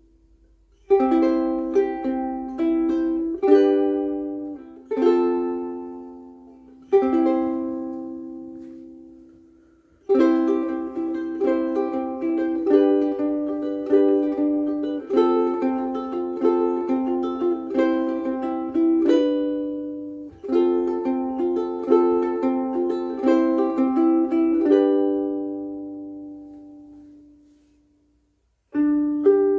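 A mahogany concert ukulele played solo. A few chords are struck and left to ring, then after a short pause comes a longer passage of quicker picked notes and chords, ending on a chord left to ring out.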